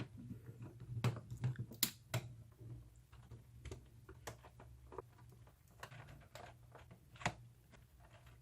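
Faint, scattered clicks and taps of a plastic computer keyboard being handled while its Phillips screws are undone, with a cluster of clicks a second or two in and a sharp single click near the end, over a faint steady low hum.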